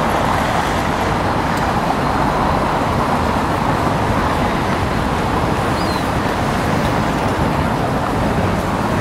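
Steady city street traffic noise: cars driving past.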